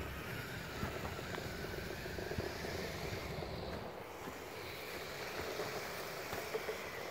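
Lego model locomotive's small electric motor and gears running with a faint whine as its plough pushes through snow, under a steady rush of wind on the microphone and a few small clicks.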